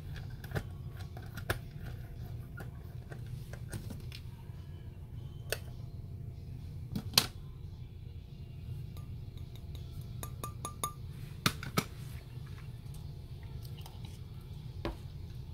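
Scattered light clicks, taps and clinks of the floodlight's front glass and plastic housing being handled and lifted off, over a steady low hum.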